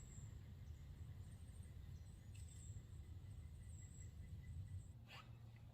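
Near silence in the woods: a faint low rumble and a thin, high steady tone that comes and goes, broken by one short, faint crack about five seconds in.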